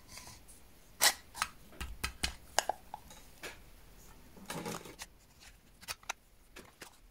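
Irregular light clicks, taps and short scrapes of a glass panel being slid into the grooves of a brass carriage clock case, the sharpest tap about a second in.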